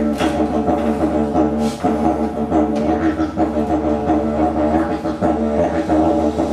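Didgeridoo playing a continuous low drone with shifting overtones and a rhythmic pulse of accents.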